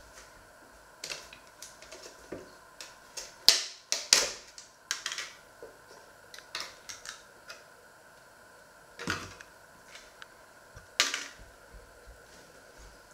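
A plastic tub of spread being opened by hand: a series of sharp clicks and crackles as the snap-on plastic lid is pried off and the foil seal is peeled back, with the loudest snap about three and a half seconds in and more crackling later on.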